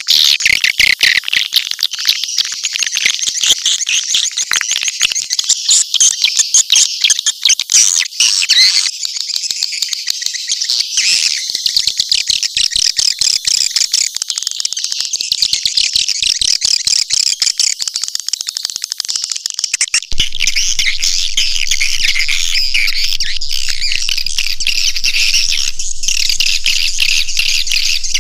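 Swiftlet caller track: dense, rapid, high-pitched twittering and chattering of swiftlets, used as a lure sound to draw swiftlets into a nesting house. About twenty seconds in, the mix changes, the twittering grows steadier and a low hum comes in beneath it.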